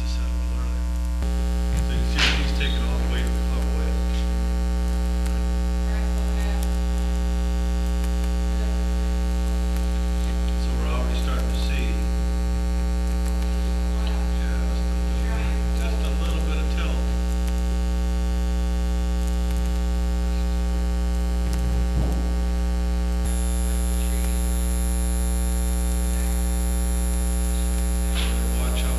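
Steady electrical mains hum with a stack of overtones, with a few faint brief sounds and one small knock over it.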